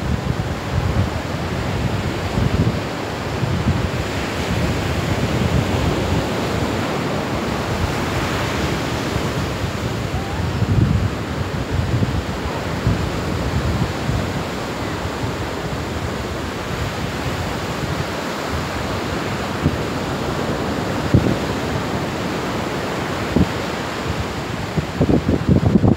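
Ocean surf washing onto a sandy beach, a steady roar of breaking waves, with wind buffeting the microphone in uneven gusts.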